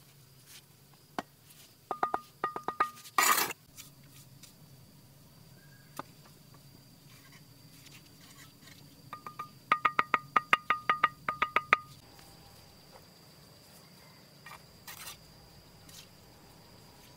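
Hammer striking metal in quick runs of ringing clinks: a short run about two seconds in and a longer, faster run of about a dozen strikes near the middle. A brief noisy burst follows the first run.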